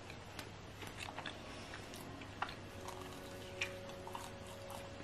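Faint chewing and mouth sounds of someone eating a soft iced glazed donut: a scatter of soft clicks and smacks, a couple of them a little louder in the middle, over a faint steady room hum.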